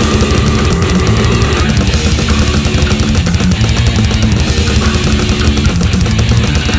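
Death metal music: heavily distorted electric guitars over fast, dense drumming, continuous and loud.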